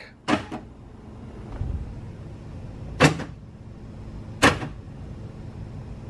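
Newly replaced power door lock actuator in a 1980 C3 Corvette door clunking as the switch is worked lock and unlock. There are three sharp clunks: one right at the start, one about halfway, and another a second and a half later. The new actuator is working.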